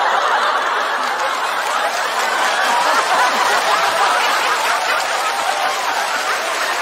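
A studio audience laughing, many voices together in a dense, steady wash.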